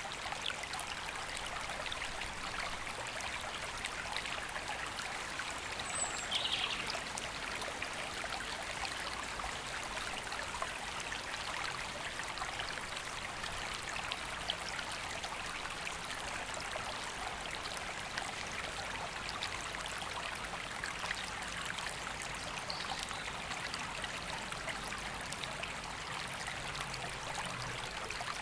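Steady rush of a river flowing, with a brief bird chirp about six seconds in.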